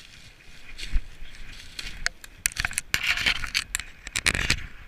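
Footsteps crunching and scraping through dry fallen leaves, an irregular run of crackling steps with brush rustling against clothing.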